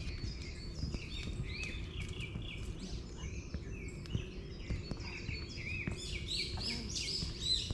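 Small songbirds chirping in a chorus of many short, quick, repeated notes, busier near the end, over a low rumble.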